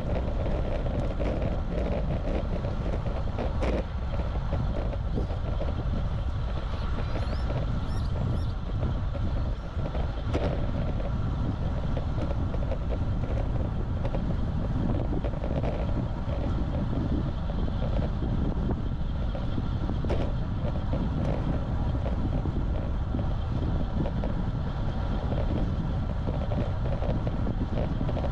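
Wind rushing over the microphone of an action camera mounted on a moving road bike, a steady low rumble that stays even throughout.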